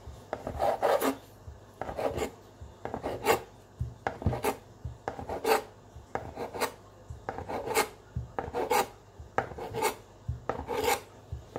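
Large kitchen knife cutting through folded sheets of fresh noodle dough against a cutting board, about a dozen short strokes roughly one a second.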